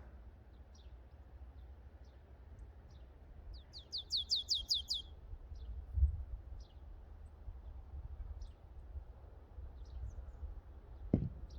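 A small bird calling: scattered faint chirps, and about four seconds in a quick run of about eight sharp, falling chirps. A low rumble of wind on the microphone runs underneath, and there is a single brief knock near the end.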